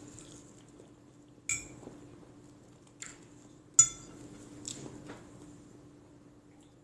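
Cutlery clinking against a plate during a meal, about five sharp clinks with the loudest a little before four seconds in, over a faint steady hum.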